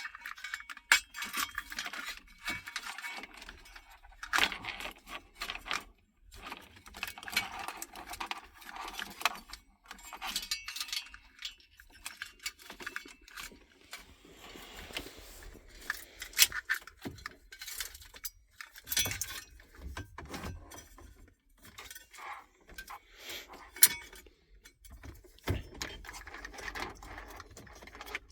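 Stereo wiring looms and plugs being handled and fed through a metal dash mounting cage: irregular rustling, with scattered clicks and metallic clinks.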